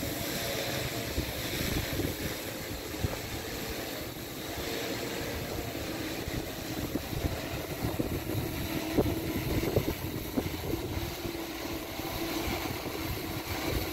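Multirotor drone's electric motors and propellers buzzing steadily in a wavering hum as it holds against strong gusting wind, with wind buffeting the microphone.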